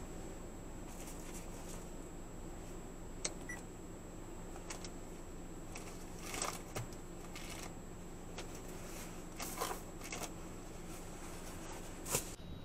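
Quiet background of a stationary car's cabin as picked up by a dashcam microphone: a low steady hum and a thin high whine, with a few faint scattered clicks, the loudest near the end.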